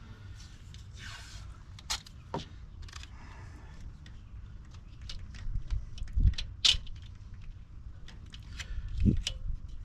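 Scattered clicks, clanks and knocks of metal parts being handled and fitted, with a couple of low thumps about six and nine seconds in: angle-iron straightedge and ratchet strap being set up against a car wheel.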